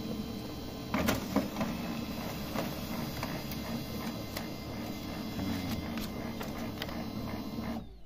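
Canon i-SENSYS MF232w laser printer printing a report page: its drive motor runs steadily, with clicks as the sheet is fed through, and it stops abruptly near the end. This print goes through normally.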